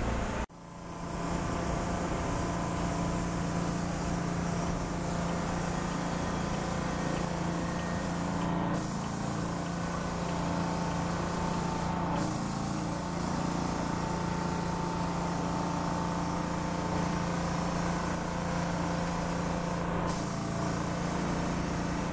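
Steady city street traffic noise with the hum of a running vehicle engine, briefly cut out about half a second in.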